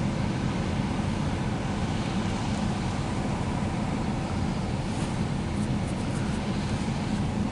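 A rail switch grinder running, a steady low rumble with a haze of hiss over it. A few faint high ticks come about five to six seconds in.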